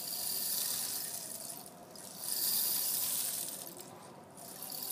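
Homemade rain stick, a paper tube studded with toothpicks, turned over again and again. Its filling trickles down past the toothpicks in a rain-like hiss that comes in three swells, each dying away before the tube is flipped again.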